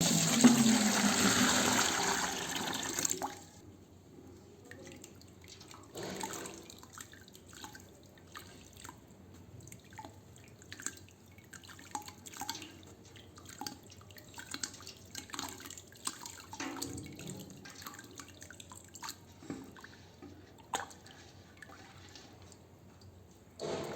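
Wet sand crumbling into water. It starts with about three seconds of loud, dense splashing, then settles into quiet, scattered crackles, ticks and drips as small lumps break apart.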